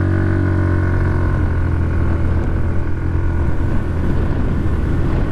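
Hero Destini 125 scooter's single-cylinder 124.6 cc air-cooled four-stroke engine at full throttle, accelerating hard from a standstill. The engine note holds steady while wind noise on the microphone builds.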